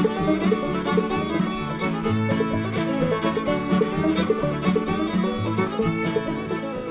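Background music: an acoustic string-band tune of quick plucked notes over a steady beat.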